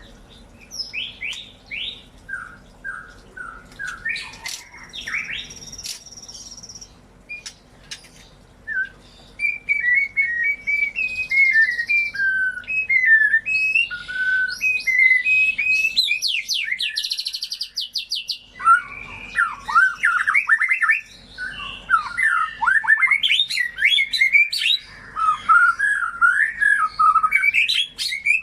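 White-rumped shama (murai batu) singing a string of varied whistled phrases and quick trills, sparse at first and fuller and louder from about two-thirds of the way in.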